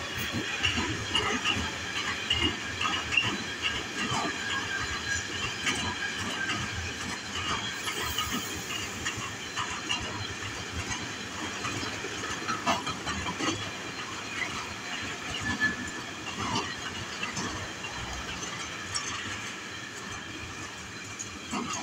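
Freight train of empty flat and stake wagons rolling past: a steady rumble of steel wheels on rail with scattered clicks and high wheel squeal. It eases off slightly toward the end.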